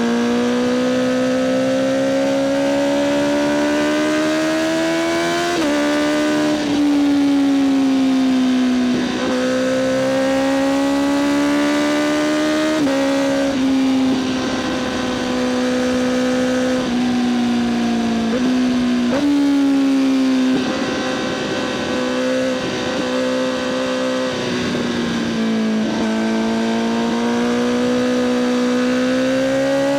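Honda CBR1000RR-R SP Fireblade's inline-four engine running through an Akrapovic exhaust, its note climbing and sagging in moderate pulls, with several sudden pitch steps where gears change.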